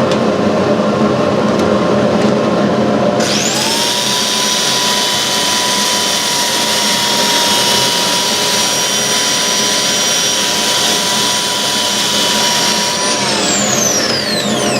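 Electric drill fitted with an 80-grit sanding pad, sanding a spindle on a wood lathe: its motor whine spins up about three seconds in, runs steadily, and winds down near the end. Underneath is the steady rush of the dust collection suction.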